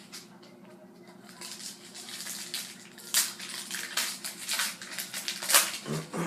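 Foil trading-card pack wrapper being crinkled and torn open by hand, a run of sharp crackles that grows louder, with the strongest rips about three seconds in and near the end.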